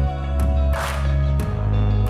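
Background music: an instrumental stretch of a pop song with deep held bass notes and a steady beat, no singing.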